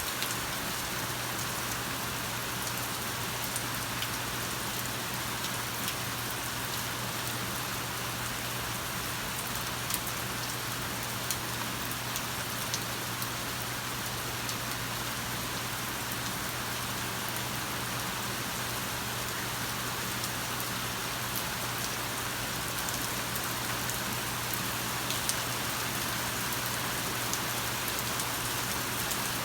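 Steady rain falling and pattering on surfaces, an even hiss with scattered drop ticks, over a faint low steady hum.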